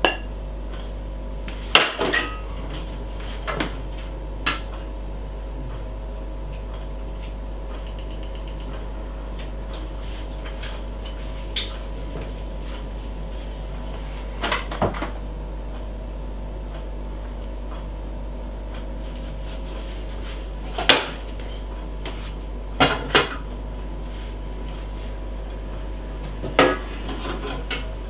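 Metal tongs and cookware clinking and clattering now and then, about eight separate knocks spread across the stretch, over a steady low hum as steak is served onto a plate.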